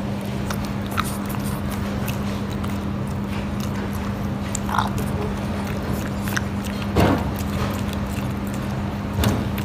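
French bulldog biting and chewing a lemon slice held in a person's fingers: scattered short mouth clicks and smacks, the loudest about seven seconds in, over a steady low hum.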